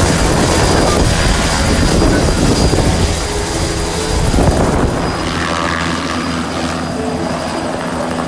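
Bell 407 helicopter running close by with its rotor turning, a steady dense rotor beat over turbine noise, easing slightly in level in the second half as it lifts off the pad.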